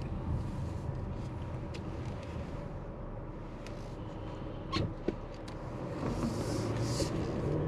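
Steady low hum of a car's engine and tyres as it drives slowly through an intersection, with two short clicks about five seconds in. Near the end another car passes close by and the noise swells.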